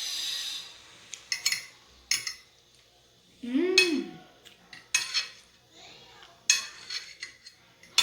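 A fork or spoon clinking and scraping against a plate a few times while pasta is eaten, with a short hummed "mm" about halfway through.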